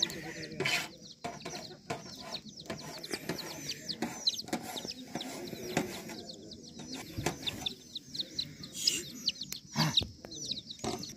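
Domestic chicks peeping: a steady string of short, high, falling chirps, several a second, with a few sharp knocks among them.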